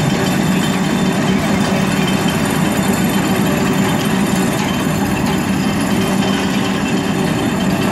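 Vibratory pile hammer driving a steel kingpost pile into the ground: a loud, steady, dense mechanical rattle with an even hum, without a break.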